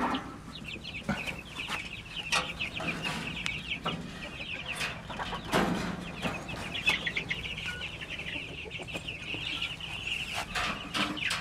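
A pen of many young chicks peeping constantly, a dense chorus of short high chirps. A few light knocks sound here and there over it.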